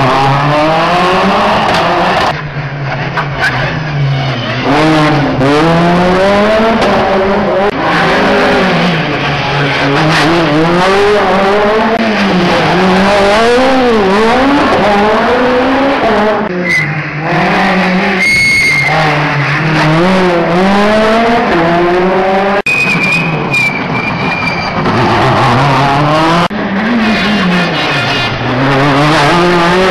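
Rally car engines revving up and down through a tight corner, one car after another, pitch falling on braking and downshifts and climbing hard on the throttle out of the corner. Short high squeals, most likely from the tyres, come in twice, about two-thirds of the way through and again a little later.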